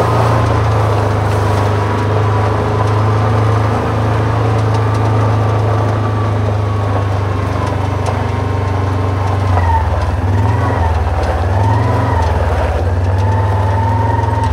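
The engine of a small farm vehicle running steadily while driven slowly, its note dipping and rising a few times in the second half as the speed changes, with a faint wavering whine above it.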